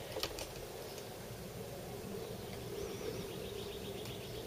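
Quiet outdoor background with a steady low hum and a few faint clicks at the start. About halfway in, a rapid, high chirping trill begins, and a short warbling whistle sounds over it.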